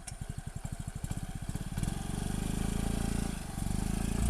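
Yamaha Ray ZR scooter's single-cylinder engine picking up from quiet, its firing pulses quickening over the first two seconds, then running under throttle with a brief dip a little past halfway before picking up again.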